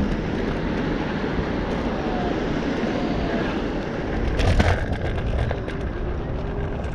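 Wind buffeting the microphone and road noise from a moving electric scooter, a steady low rush. About four and a half seconds in there is a brief clatter and thump, as of the scooter going over a bump.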